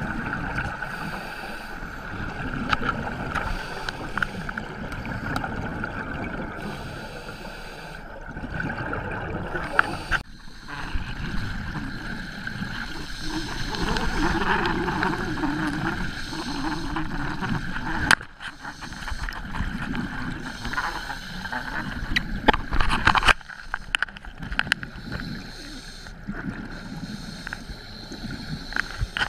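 Boat on turbulent, churning water, with water gurgling and splashing over a steady hum and a few sharp knocks.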